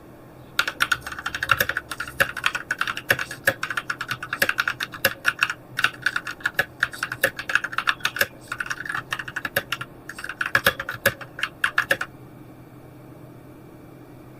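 Typing on a Dierya DK61se 60% mechanical keyboard with red linear switches: rapid, dense keystroke clacks with a few short pauses, stopping about two seconds before the end.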